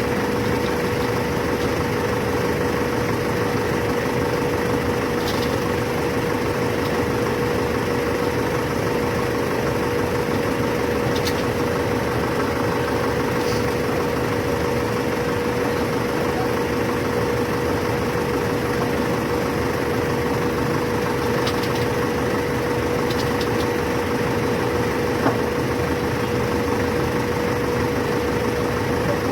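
Engine of heavy construction machinery running steadily at constant speed, with an even drone and a few faint clicks.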